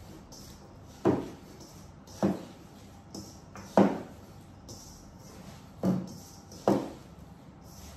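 Five dull thumps on a kitchen counter, irregularly spaced a second or two apart.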